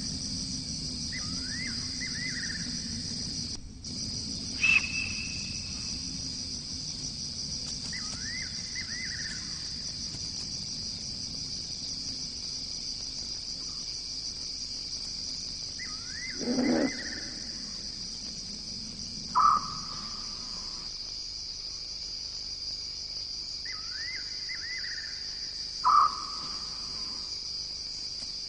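Night chorus of insects: a steady high-pitched trilling, with a few short chirping calls and four louder sharp calls from other animals scattered through it.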